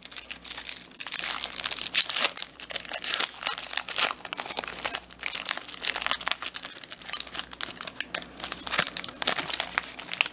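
Foil wrapper of a Pokémon trading card booster pack crinkling as it is handled and torn open, a dense irregular crackle with sharp clicks throughout.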